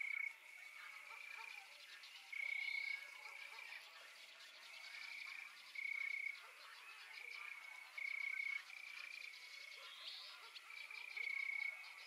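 A chorus of frogs calling: short, rapidly pulsed croaking trills, each about half a second long, repeating every second or so, some louder and nearer than others.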